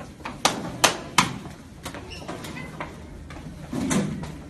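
Hands slapping and clapping in a choreographed handshake routine: three sharp, loud slaps in the first second and a half, then a few lighter ones. A voice is heard briefly near the end.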